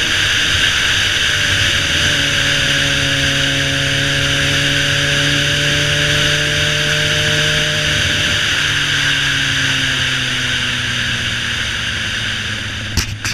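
Suzuki GSX-R 600 inline-four engine pulling the bike along at a steady cruise, under heavy wind rush on the helmet- or body-mounted camera. The engine note shifts about two seconds in, then drops and eases off gradually from a little past eight seconds as the bike slows. There are a few sharp clicks near the end.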